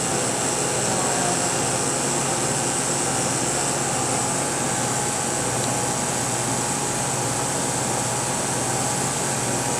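Steady whir of electric cooling fans with a constant low hum underneath, unchanging throughout.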